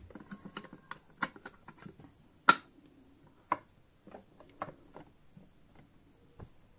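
Scattered clicks and knocks as a sewing machine's foot pedal and its cord are handled and slid back into place in the Frister and Rossman Cub 4's base, with one sharp knock about two and a half seconds in and a smaller one a second later.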